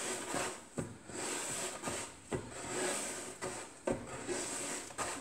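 Hands rounding a ball of pizza dough on a floured wooden board: soft rubbing and dragging strokes, with a light knock about every second and a half as the dough is pulled against the board.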